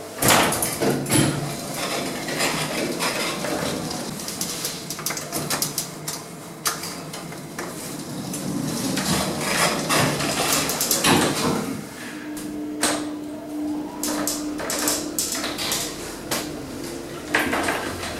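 1990s passenger lift in operation: the doors and car rattle and clank, with many sharp knocks and clicks. About two-thirds of the way through, a steady hum sets in and holds.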